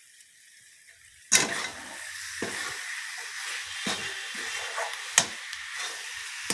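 Coconut and sugarcane-jaggery mixture sizzling in a hot metal kadai while a metal spatula stirs it, scraping the pan with several sharp clicks. The mixture is nearly cooked. Faint at first, the sizzle and scraping start abruptly about a second in.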